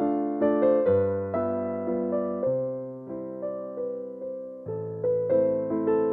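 Background piano music, its notes struck and left to fade, with the chords changing every second or so.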